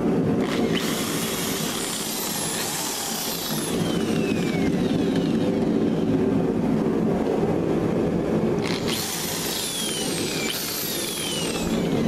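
Corded Makita electric drill run twice in short bursts, each time starting suddenly and then spinning down with a falling whine. A steady machine hum runs underneath.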